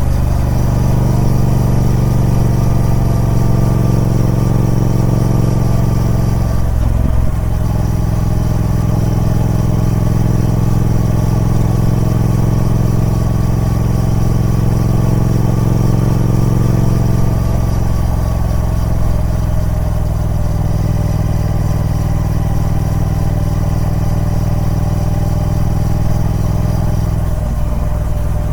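Triumph Speed Twin 1200's parallel-twin engine running through its stock exhaust at a steady engine speed. The note breaks briefly and shifts about a quarter of the way in, again past the middle, and once more near the end.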